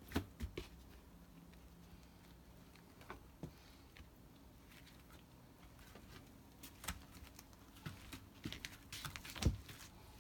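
Light scattered clicks and taps of a kitten's paws and claws on a tile floor as it bats at a small snake, with a quick run of taps near the end.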